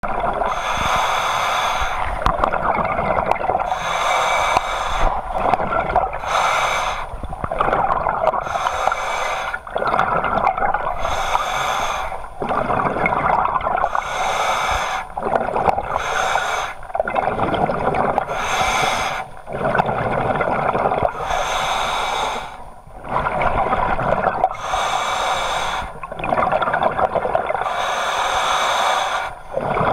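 Scuba diver breathing through a regulator underwater: a hissing inhale and a longer burst of exhaled bubbles, repeated every few seconds.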